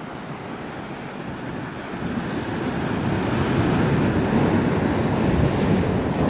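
Ocean surf breaking on a rocky shore, mixed with wind buffeting the microphone; the rushing noise swells about two seconds in and stays loud.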